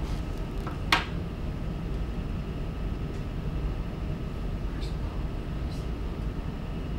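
Room tone in a lecture room: a steady low hum, with one sharp click about a second in and a few faint ticks later.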